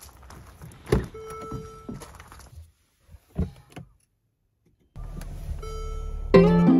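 A few sharp knocks and clicks, one followed by a short ringing tone, then a pause; near the end a guitar music intro begins.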